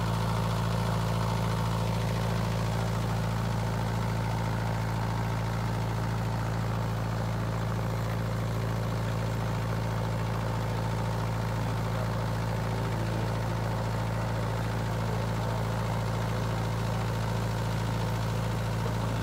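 Engine running at a steady idle: a low, unchanging drone with a faint higher tone over it.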